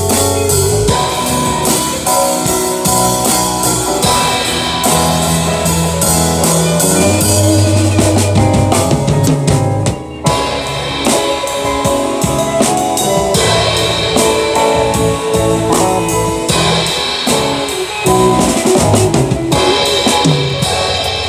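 Live band playing an instrumental passage: drum kit with bass drum and snare rimshots under guitar, with no singing. The music drops out for a moment about ten seconds in, then carries on.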